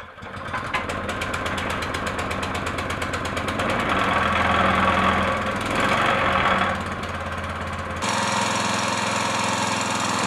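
Rebuilt Honda GX160 single-cylinder four-stroke engine running on choke just after starting, speeding up and getting louder for a few seconds before easing back. About eight seconds in, the sound changes abruptly to a steady, solid run.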